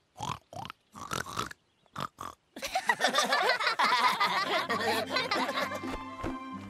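Cartoon characters' voices making playful pig oinks, several short ones in a row, then the whole group bursting into laughter together. Music comes in near the end.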